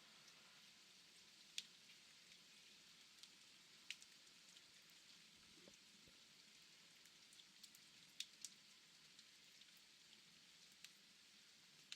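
Faint steady rain, an even hiss with scattered sharper drips landing now and then.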